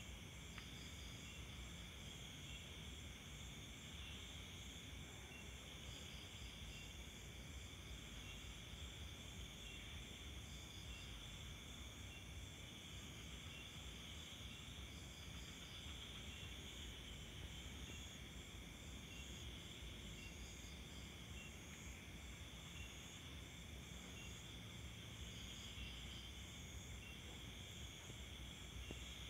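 Faint, steady trilling of night insects such as crickets, with a fast even pulsing and short groups of chirps recurring every few seconds, over low background noise.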